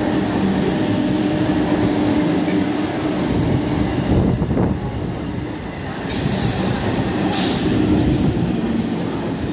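Eastern Railway suburban electric (EMU) train running through a station platform at speed without stopping: steady rumble and clatter of wheels on rail, with a humming tone that fades out and comes back. Two short bursts of hiss come in the second half.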